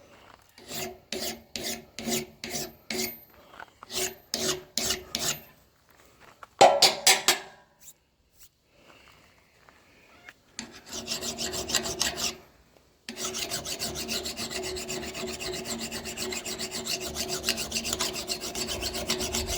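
Hand file rasping across the steel edge of a splitting axe while it is dressed to a finish. First come separate strokes, about two a second, with the axe head ringing faintly under them. After a pause of a few seconds the rasping turns into faster, continuous scraping to the end.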